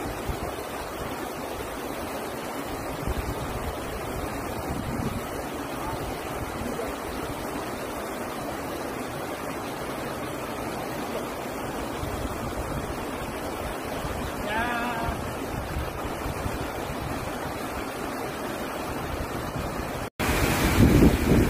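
Sea surf washing over rocks with wind buffeting the microphone, steady throughout. A short bird call about two-thirds of the way through, and near the end a sudden cut into louder wind and surf.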